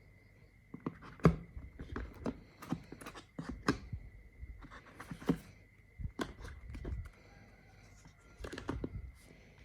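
Hands handling a tablet and its packaging: irregular sharp clicks and taps with short bursts of rustling, over a faint steady high-pitched whine.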